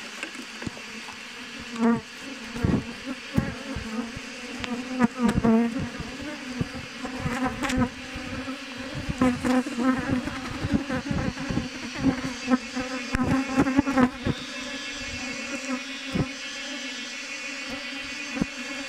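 A honeybee swarm buzzing in the air around the microphone after being disturbed, a steady hum with many close, loud passing buzzes and sharp knocks from about two seconds in until about fourteen seconds, then settling to an even drone.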